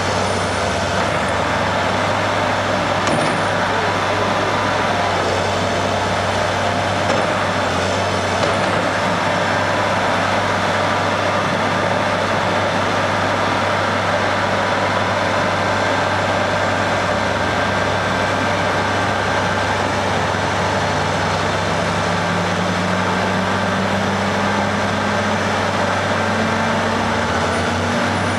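Vehicle engine running with steady road noise; the engine note slowly rises over the last several seconds.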